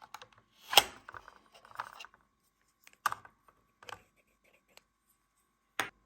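Three sharp clicks or taps, spaced about two and a half seconds apart, with light scraping and rustling between them over a faint steady high hum.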